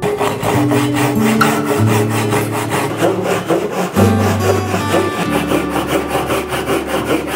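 Hand saw cutting through a wooden block, in quick repeated strokes, with background music playing over it.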